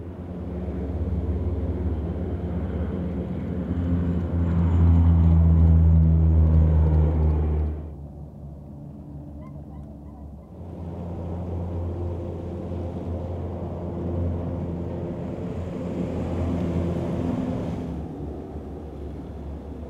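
Twin-engine amphibious air tanker flying low past, a propeller drone that swells and cuts off abruptly about eight seconds in. After a quieter stretch, another pass drones from about eleven seconds and fades near the end.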